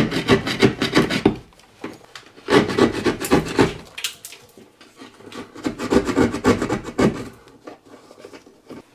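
Rasping, scraping strokes of a hand tool worked quickly back and forth against a hard surface, in three bouts of about a second each with short pauses between.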